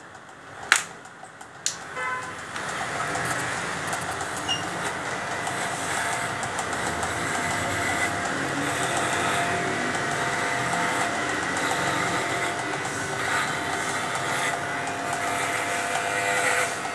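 Corded electric pet clipper starting up about two seconds in, after a few sharp clicks, then running with a steady buzz as it shaves a St. Bernard's thick coat.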